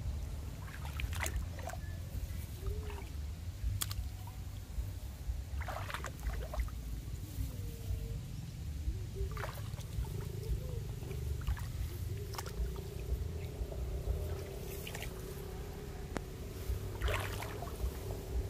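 Shallow water sloshing and splashing in irregular strokes as a hand dip net is pushed and dipped through a weedy rice-field pool, over a steady low rumble.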